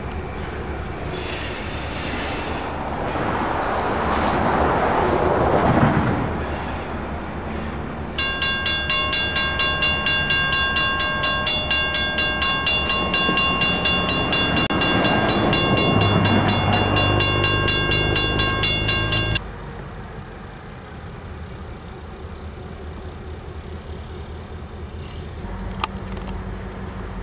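EMD diesel locomotive running past at close range, its engine and wheels on the track swelling about five seconds in. It then rings its bell steadily, about three strokes a second, over the running engine for some eleven seconds. The bell cuts off suddenly, leaving a quieter engine sound.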